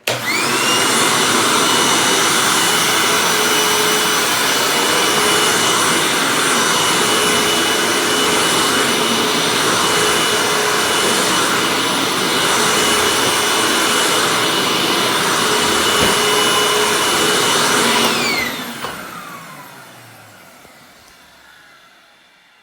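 Hoover WindTunnel upright vacuum cleaner switched on, its motor whining up to speed and then running steadily, with the brush-roll belt taken off so only the suction motor runs. About eighteen seconds in it is switched off, and the whine falls away as the motor spins down.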